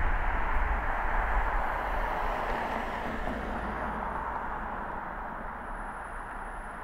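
Car's road and tyre noise with a low rumble, fading steadily as the car slows to a stop at an intersection.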